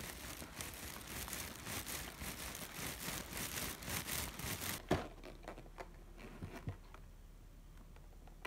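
Faint rustling and shuffling of someone walking in slide sandals on concrete, with a sharp click about five seconds in, then a few soft ticks.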